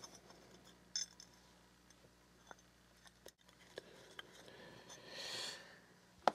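Faint clicks and taps of small screws, brass washers and a metal base plate being handled, with a soft scrape about five seconds in and a sharp click near the end.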